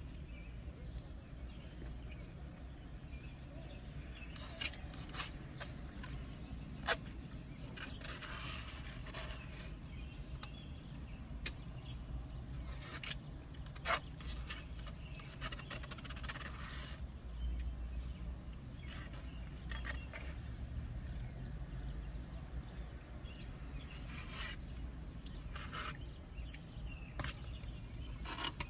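Eating sounds: a plastic utensil clicking and scraping in a foam cup, with chewing and a few sharp clicks now and then, over a steady low hum.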